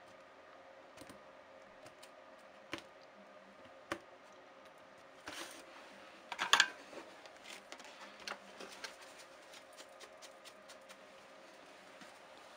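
Light clicks, taps and small scrapes of a laptop motherboard and small tools being handled on a repair bench, loudest in a brief cluster a little past the middle, over a faint steady hum.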